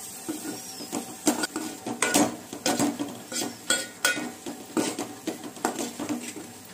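Steel spoon stirring and scraping a thick tomato and spice masala around a stainless steel pot, clinking against the metal again and again.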